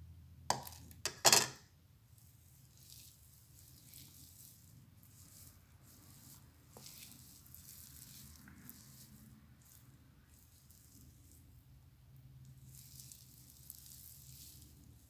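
Quiet handling sounds of hands working through wet, product-coated hair: soft, faint rustles on and off, after a few sharp clicks or knocks in the first couple of seconds.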